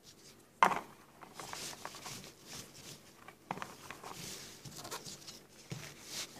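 Cloth rustling and rubbing as gloved hands wipe down a metal object with acetone to degrease it before silver plating, in uneven strokes, with a sharp knock about half a second in.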